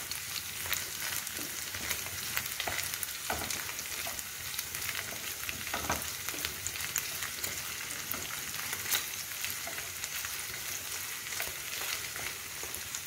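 Small chicken pieces sizzling and crackling as they brown in sunflower oil in a frying pan, stirred with a wooden spatula that scrapes the pan now and then.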